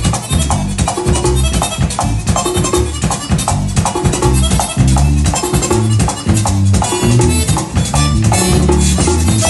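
Merengue típico played live with a fast, steady beat: a button accordion carries the melody over a tambora, the scraping of a metal güira, and an electric bass.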